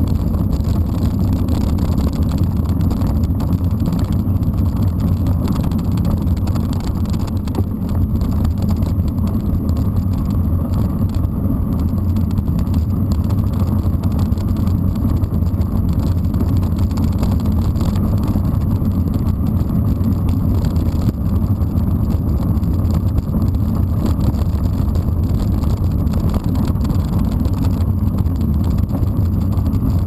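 Steady low rumble of wind buffeting the microphone and mountain bike tyres rolling over a gravel dirt road.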